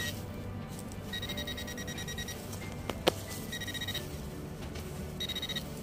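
Metal detector sounding a steady high electronic beep in three bursts, one long and two short, signalling a buried metal target. A couple of sharp clicks about three seconds in.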